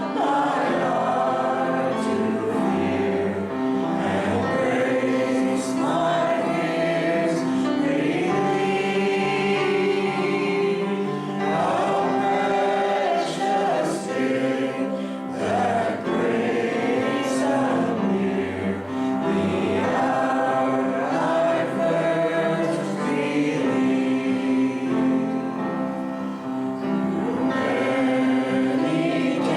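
Church congregation singing a gospel hymn with musical accompaniment.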